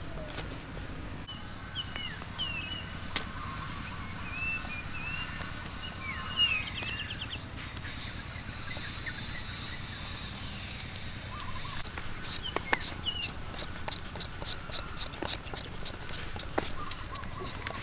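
A hand vegetable peeler scraping strips off a raw potato in quick strokes, several a second, starting about two-thirds of the way in. Birds chirp now and then over a steady low outdoor rumble.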